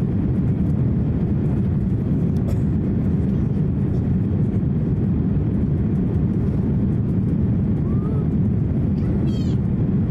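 Steady cabin roar of an Airbus A350-900 in the climb just after takeoff: its Rolls-Royce Trent XWB engines and the airflow around the fuselage, heard from a window seat behind the wing.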